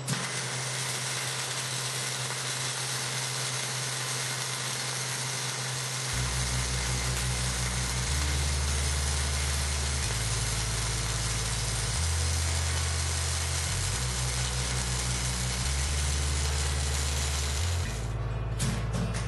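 Electric welding arc hissing and crackling steadily as a weld bead is laid, with a steady mains hum under it; the arc stops about a second before the end. From about six seconds in, background music with a low bassline that changes note every couple of seconds plays along.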